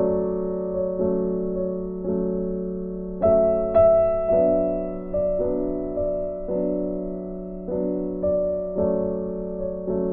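Background piano music: notes and chords struck roughly every half second to a second and left to ring and fade.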